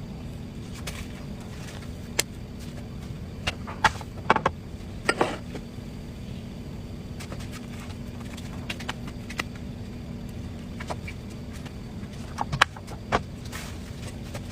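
A carving knife cutting into a watermelon and knocking against the rind and cutting board in scattered sharp clicks and knocks, grouped around four to five seconds in and again near the end, over a steady low hum.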